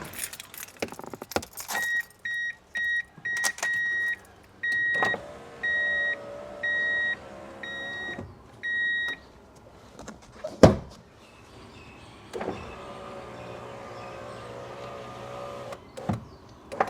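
Miata power window motor running twice, the second time a few seconds after the first, each run a steady whine. Before it comes a series of high electronic beeps, first short and quick and then longer and evenly spaced, with a few clicks at the start. Between the two runs there is one sharp loud clunk.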